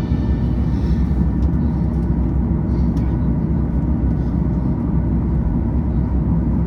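Cabin noise in the rear of a Boeing 737-900ER with its CFM56-7B engines running at idle on the ground: a steady low rumble mixed with the hiss of cabin air.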